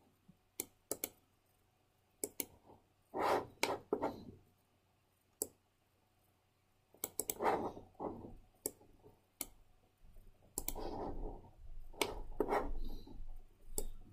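Irregular clicks of a computer mouse and keyboard, single sharp clicks scattered through, with softer rubbing noises between them, some lasting a second or more.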